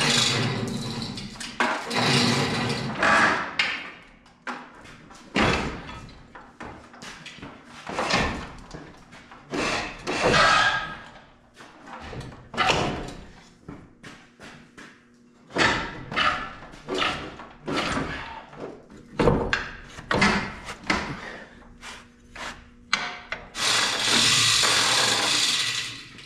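Irregular clanks and knocks of heavy steel parts being handled around a snowplow mount and its chain. Near the end comes a steady rushing noise that lasts about two seconds.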